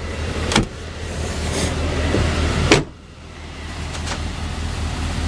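Steady hum of a 2008 Chevy Silverado's 6.0-litre gas V8 idling, with its air-conditioning blower running, heard inside the cab. Two sharp clicks come through it, a light one about half a second in and a louder one just under three seconds in, after which the noise dips briefly and builds again.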